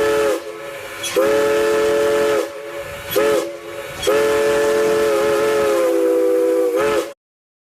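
Multi-chime train horn sounding a chord in the grade-crossing pattern: the tail of a long blast, a second long blast, a short one and a final long one. This is the standard warning for a level crossing. There is a hiss between the blasts, and the sound cuts off abruptly near the end.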